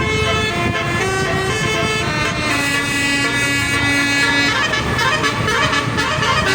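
A basuri bus horn, the multi-tone electric horn Indonesian buses carry, playing a melody. A run of short notes is followed by one long held note from about two and a half seconds in, then more quick notes. Vehicle engine noise lies underneath.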